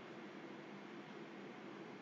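Steady faint hiss with a low hum underneath: room tone, with nothing happening.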